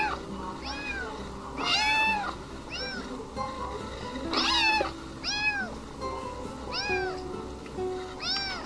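A cat meowing over and over, a quick run of short meows that each rise and fall in pitch, over background music.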